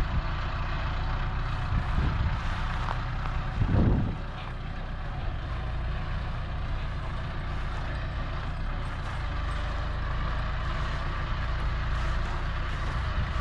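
Tractor engine running steadily, with a brief louder surge about four seconds in, after which it settles a little quieter.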